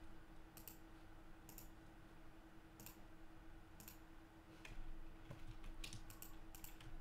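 Faint computer mouse and keyboard clicks, about a dozen sharp clicks at irregular intervals, bunching up in the second half, over a faint steady hum.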